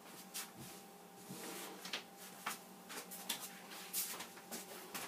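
Faint handling noise: a scattering of short soft clicks and rustles as hands pat and settle a damp felted hat and its sandbags on a hat block, over a faint steady hum.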